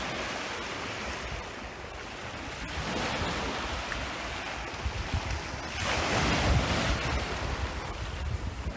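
Small waves of a calm sea washing up onto a sandy beach and around shoreline rocks, with a swell about three seconds in and a louder wash about six seconds in.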